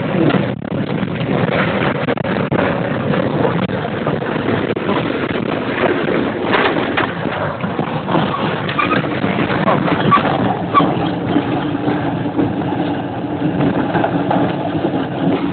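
Tornado passing almost directly overhead, heard from inside a building: a loud, continuous rushing roar of wind, with scattered sharp knocks and bangs of debris striking.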